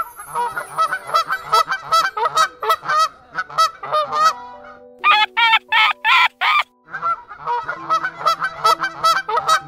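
Flock of white domestic geese honking, a fast chatter of many short overlapping calls, with a louder, higher run of honks from about five to six and a half seconds in.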